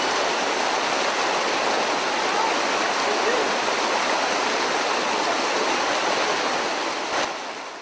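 A steady rushing noise, even and loud, that fades out near the end.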